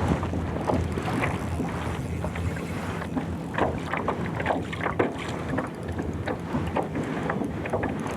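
Water lapping and slapping against a small boat's hull in irregular little splashes, with wind buffeting the microphone over a low steady hum.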